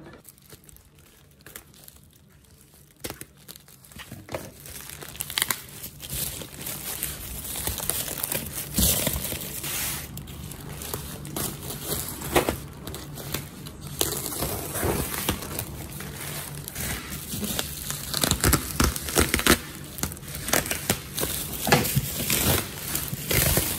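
Plastic packaging crinkling and tearing as a parcel in a black plastic mailer bag is cut open and unwrapped by hand, down to bubble wrap. It is quiet for the first few seconds, then a steady run of crackles and rustles.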